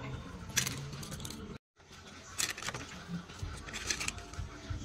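Small snail shells clicking and scraping against a metal tray as they are handled and picked at with toothpicks: a handful of short, sharp clicks.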